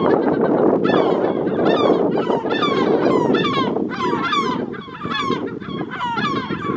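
Many yellow-legged gulls calling at once over their breeding colony: a dense chorus of overlapping, repeated calls.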